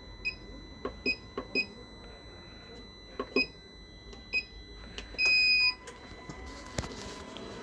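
Electronic beeps from a battery charger-tester as its buttons are pressed to start a charge: five short high beeps with faint key clicks, then one longer beep about five seconds in.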